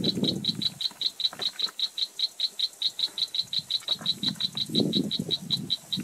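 A small animal calling: a long, even run of short, high clicks, about five a second, that stops just after the end. Low rumbles come near the start and again about five seconds in.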